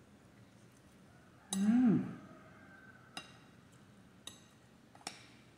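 Metal spoon clinking against a glass bowl during eating: single light clinks about one and a half, three, four and five seconds in. About one and a half seconds in comes a short hummed murmur from the person eating, its pitch rising then falling, which is the loudest sound.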